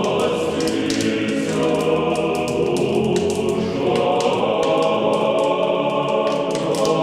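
A choir singing slow, sustained chords, an unaccompanied church-style chant.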